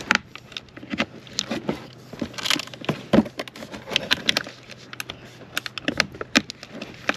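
Irregular clicks, knocks and rattles of hard plastic as Bosch ProCore 18-volt tool batteries are handled and pushed into place in a clear plastic tub, with the loudest knock about three seconds in.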